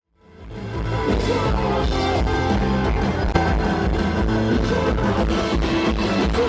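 Live rock band playing, with guitar, bass and drum kit. The music fades in over the first second, then holds steady.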